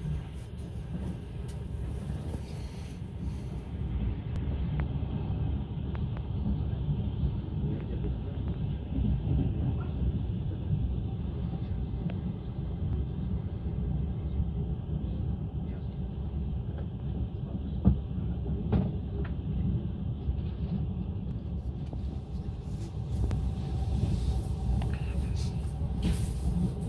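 Passenger train running: a steady low rumble of the carriage and its wheels on the rails, with one sharp knock about two-thirds of the way through.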